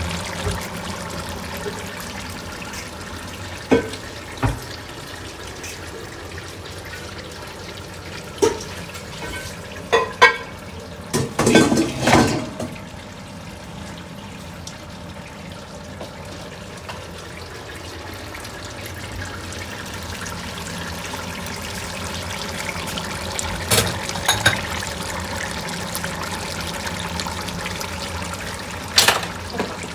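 Veal and wine steadily bubbling and hissing in a stew pot on the stove, with a few short clinks and knocks of utensils against the pot.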